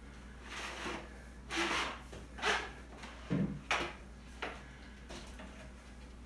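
Exercise gear being handled: about six short scrapes and knocks, with a dull thump a little past the middle, as plastic jugs and a long stick are moved about on the floor.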